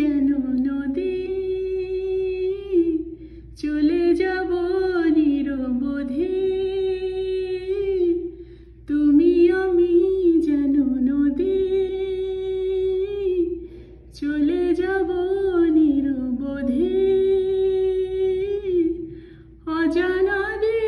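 A woman's voice singing a wordless melody unaccompanied, in four long phrases with short breaths between, each ending on a held note.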